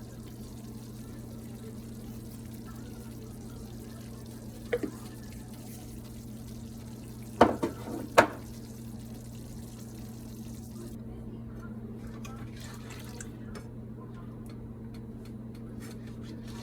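A few sharp knocks of a cooking utensil against a pan: one about five seconds in, then three close together around seven to eight seconds in, over a steady low hum.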